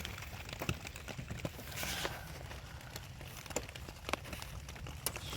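Scattered light clicks and a brief rustle, about two seconds in, from hands working on the engine's ignition wiring, over a steady low rumble.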